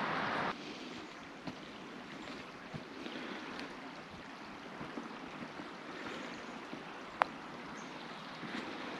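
Footsteps rustling through dry fallen leaves over a faint steady hiss, with a single sharp click about seven seconds in. A louder rushing hiss cuts off suddenly about half a second in.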